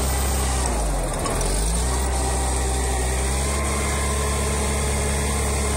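LKT forestry skidder's diesel engine running; its note sags briefly about a second in and picks back up, then runs steady.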